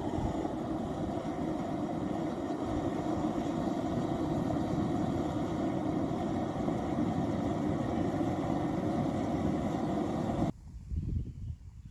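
Gas-fired Devil Forge melting furnace running, its burner making a steady, even roar that cuts off suddenly about ten and a half seconds in.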